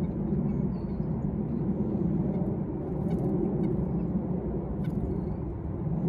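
Steady low outdoor rumble with a few faint, short, high bird chirps and clicks.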